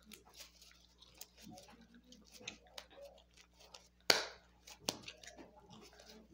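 Hands kneading and squeezing a soft squishy toy, giving scattered small crackles and clicks. A loud brushing knock about four seconds in and a sharper click just before five seconds.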